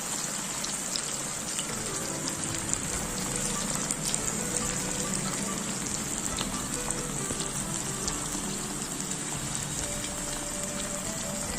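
Marinated chicken pieces deep-frying in hot oil in a nonstick pan: a steady sizzle with scattered small pops and crackles, with soft background music underneath.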